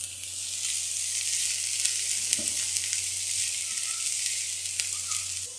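Chopped onions sizzling steadily in a little oil in a non-stick frying pan over a low flame, stirred with a silicone spatula that gives a few faint taps.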